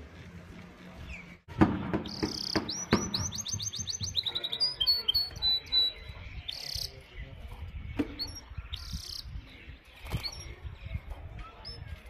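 Canary song: a fast trill of high, quickly falling notes for about four seconds, then scattered short chirps and two brief buzzy notes. A sharp knock sounds just before the trill begins.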